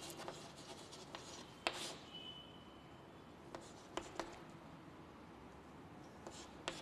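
Chalk writing on a chalkboard: faint scratching of the chalk stick with a few sharp taps against the board.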